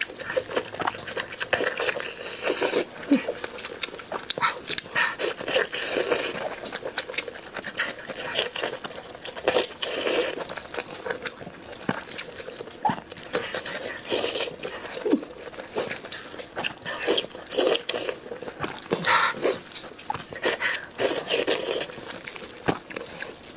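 Close-miked eating of glossy braised meat: wet chewing, lip smacks and slurps, irregular and almost continuous.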